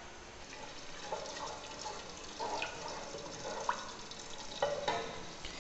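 Whole cumin seeds sizzling faintly in warm oil in an aluminium pot, with small scattered crackles, while a wooden spatula stirs and scrapes against the pot now and then.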